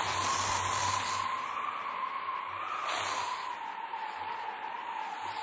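Steady hissing noise with a faint, slowly wavering whistle running through it, a sound-effect bed in a radio drama.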